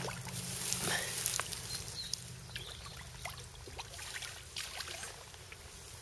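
Water splashing and trickling as a small pike thrashes at the surface of a shallow river margin, louder in the first second or so, then lighter slops and drips.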